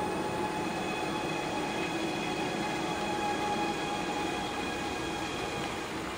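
A steady, high-pitched drone holding one unchanging pitch, over a light outdoor background hiss.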